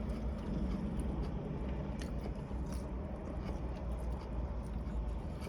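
Chewing and mouth sounds from someone eating, a few faint clicks over a steady low hum.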